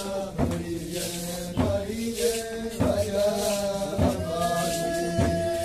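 Group of Tuyuka dancers chanting together in a ritual dance song, with a sharp stamping thump about every second and a quarter keeping the beat. A single high sung note is held steadily over the last part.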